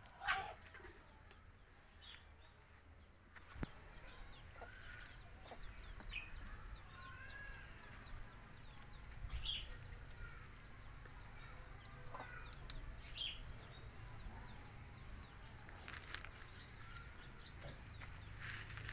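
Faint, scattered short animal calls and high chirps, with a few soft knocks, over a quiet outdoor background.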